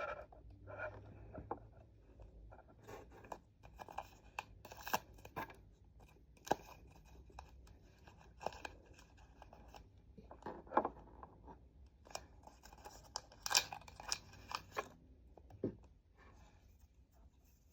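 Hands handling a camera screen protector and its plastic packaging: scattered clicks, short scratches and rustles of plastic film, some sharper snaps around the middle.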